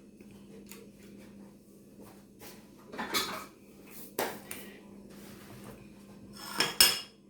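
Kitchen utensil clinking and scraping against a mixing bowl while a cream is being mixed: a few separate knocks, the loudest near the end, over a faint steady hum.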